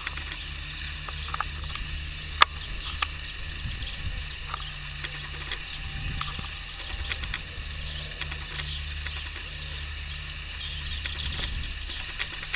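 Steady low rumble and hiss of outdoor ambience with scattered faint ticks and one sharp click about two and a half seconds in; no bleating stands out.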